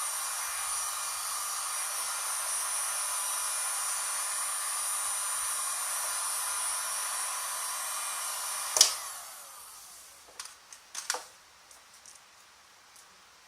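Handheld electric heat gun for shrink film, its fan blowing steadily with a hiss. About nine seconds in it is switched off with a sharp click and runs down over about a second. A few light clicks and rustles of handling follow.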